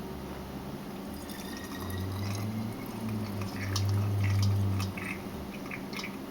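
Thick warm cough syrup being poured through a strainer and funnel into a bottle, dripping, with scattered small clicks and taps. A low hum swells for a few seconds in the middle.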